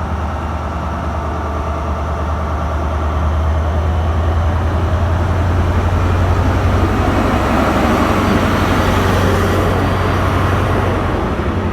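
Class 43 HST power car's diesel engine running as the train moves off: a deep, steady drone under a rushing noise that swells through the middle and eases off near the end.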